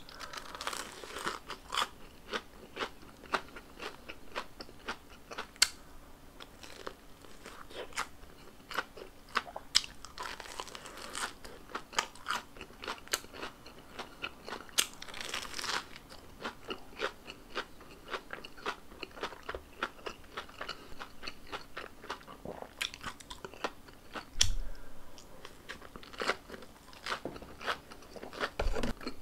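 Close-miked crunching and chewing of a breadcrumb-fried Korean corn dog. The crust crackles with each bite, most noisily near the start, about ten seconds in and about fifteen seconds in, with chewing in between.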